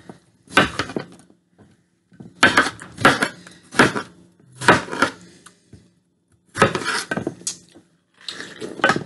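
Kitchen knife chopping watermelon on a baking tray: a series of uneven, sharp knocks and clinks as the blade cuts through the fruit and hits the tray.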